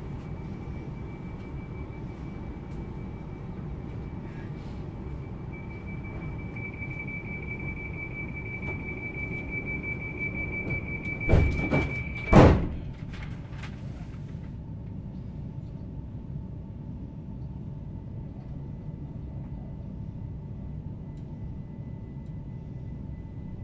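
Class 387 electric train's sliding passenger doors closing: a high steady door warning tone grows louder, then cuts off as the doors shut with two heavy thuds about eleven and twelve seconds in. Afterwards the stationary train's low steady hum goes on.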